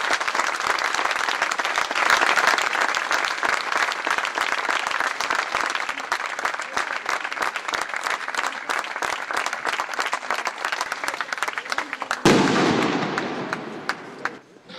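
A crowd applauding outdoors, a dense steady patter of many hands clapping. About twelve seconds in it breaks off into a sudden lower rush of noise that fades away.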